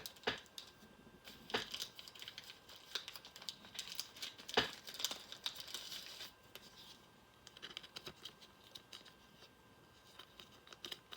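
Trading cards being handled and slid through by hand: light rustling and crinkling with scattered small clicks, busiest in the middle with one sharper click about halfway.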